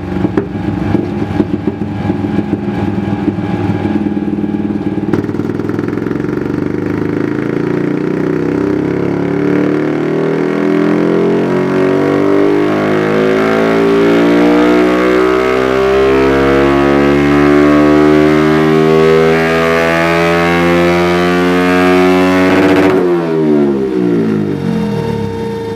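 Yamaha YZF-R125's 125 cc single-cylinder four-stroke engine, breathing through a Dominator full exhaust system, running on a dyno. It holds low revs briefly, then pulls in one long, steady climb in pitch through the rev range. Near the end the throttle is shut and the revs drop quickly.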